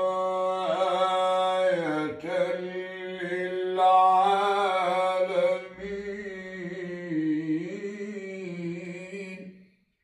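A man reciting the Quran in the slow, melodic tajweed style, drawing out long held notes that waver up and down. He breaks for a breath about two seconds in, and the phrase trails off near the end.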